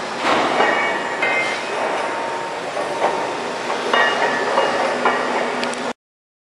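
MEBAeco 410 DGA-4300 CNC double-mitre metal bandsaw system running: a steady mechanical hiss broken by several sharp metallic clanks, each followed by brief ringing. The sound cuts off suddenly near the end.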